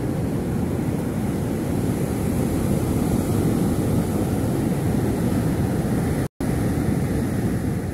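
Steady noise of wind buffeting the microphone mixed with the roar of sea surf, heaviest in the low range. The sound cuts out completely for an instant about six seconds in.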